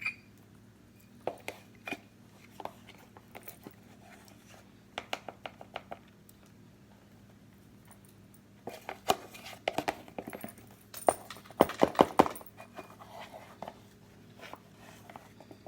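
Kitchen utensils clicking, tapping and scraping as half a cup of cocoa powder is measured out, with a denser run of knocks about nine to twelve seconds in.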